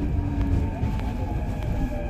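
Seoul subway Line 2 train running, heard from inside the car: a steady low rumble of wheels on the track with a faint motor whine sliding slightly lower in pitch.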